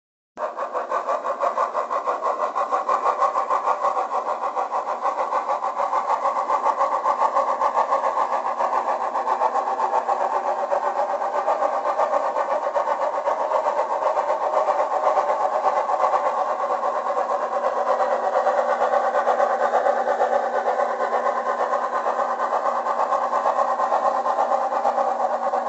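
On30 model steam locomotive's sound system playing a steady engine sound with a fast, even beat. It starts abruptly about half a second in and then holds steady.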